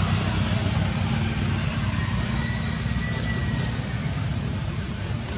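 Steady low rumble with a thin, constant high whine above it.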